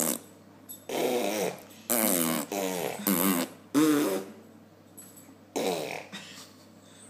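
A baby blowing raspberries: about half a dozen short, wavering, buzzing bursts with brief pauses between them.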